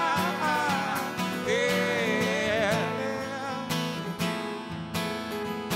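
Two acoustic guitars strummed and picked together, with a male voice singing a drawn-out, wordless line over them for about the first three seconds before the guitars go on alone.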